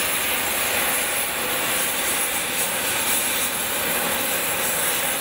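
Several hand-held gas torches burning with a loud, steady hiss as their flames heat the hub of a large metal machine wheel.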